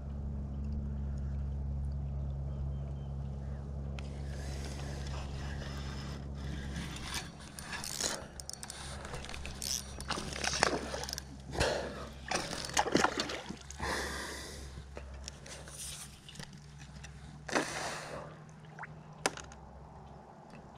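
Water splashing and trickling around a kayak, in irregular short bursts with a few sharp splashes, over a low steady hum that fades after the first several seconds.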